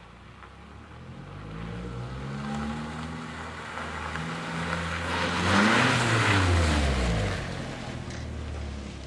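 Nissan 240SX's KA24E 2.4-litre single-overhead-cam four-cylinder under way, its pitch climbing for a few seconds and then falling back. A louder rush of noise swells and fades in the middle.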